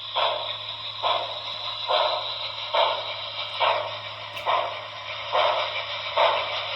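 HO-scale Broadway Limited Imports Commodore Vanderbilt Hudson's onboard sound system playing steam exhaust chuffs through its speaker at slow speed, a little more than one chuff a second, over a steady low hum.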